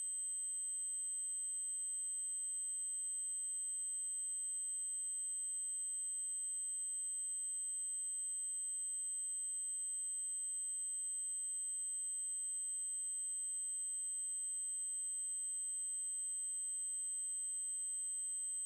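Synthesized 8192 Hz triangle-wave test tone: a single steady, very high-pitched tone that holds at an unchanging pitch and level.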